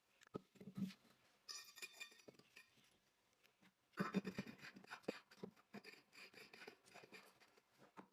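Close-up handling sounds of a new water bottle and its packaging being unboxed: a few light knocks and clinks, then from about four seconds in a longer run of rustling, crackling and tapping.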